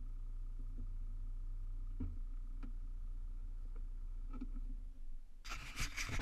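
Stopped vehicle's engine idling as a steady low hum, with a few faint clicks. About five and a half seconds in, a loud rough rustling starts and flutters unevenly.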